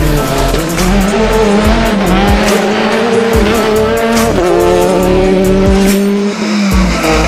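Citroën DS3 R5 rally car's turbocharged four-cylinder engine revving hard as the car drives at speed, its pitch rising and dropping, with crackles over it. Background music plays underneath.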